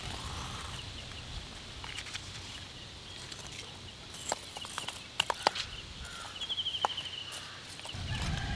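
Lumps of charcoal knocking and clinking against each other as they are stacked by hand around a small camphor-lit fire, a few sharp knocks in the second half. A bird gives a short, fast, high trill about two thirds of the way in.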